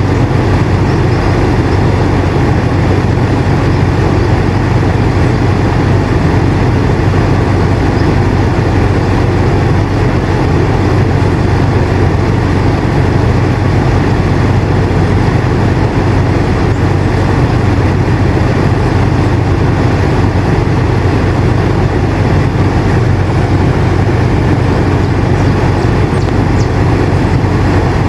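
Air conditioner running steadily: a constant low hum with an even rush of airflow over it.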